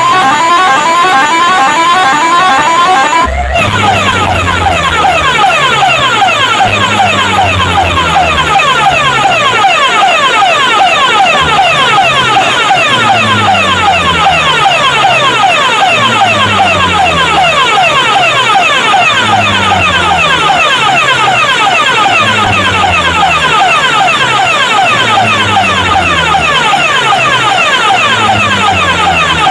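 DJ sound-system playing a loud electronic hard-bass track: rapid, repeating falling alarm-like tones over a deep bass that drops in pitch about every second and a half. The music changes abruptly about three seconds in.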